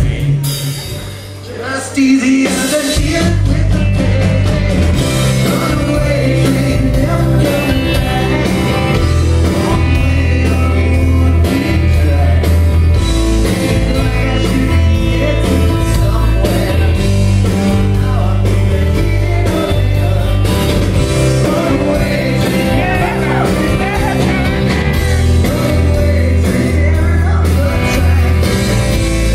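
Rock band playing live: drums, bass, electric and acoustic guitars with a male lead vocal. The band drops back briefly near the start, then the full band with heavy bass and drums comes back in about two seconds in and plays on steadily.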